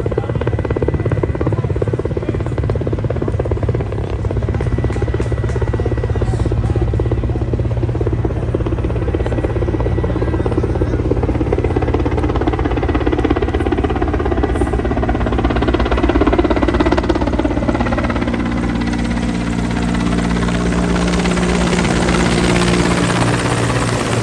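A large military transport helicopter flying overhead, its rotor giving a steady, rapid thudding. About fifteen seconds in, the higher-pitched engine and rotor noise builds and the sound grows brighter.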